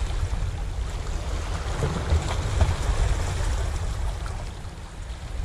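Wind rumbling on the microphone over small waves washing and lapping against the boulders of a rock breakwater.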